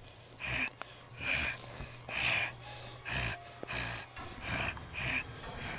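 A person breathing hard and raspily through the mouth in quick, regular hissing breaths, about one every 0.7 seconds: a zombie's menacing panting.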